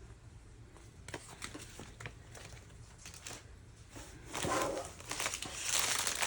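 Plastic packaging from a diamond-painting kit being handled. Light rustles and small taps come first, then louder crinkling over the last two seconds.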